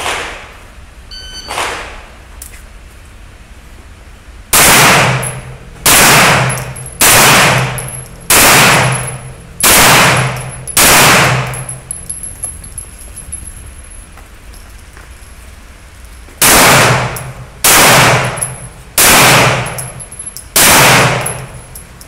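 Pistol fired ten times on a defensive pistol match stage: six shots about a second apart, a pause of about five seconds, then four more. A short beep comes about one and a half seconds in, the shot timer starting the string.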